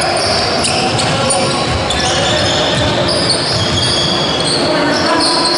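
Basketball game sounds: a basketball bouncing on the wooden court as it is dribbled, and many short high squeaks of players' shoes on the floor, over the steady din of the sports hall.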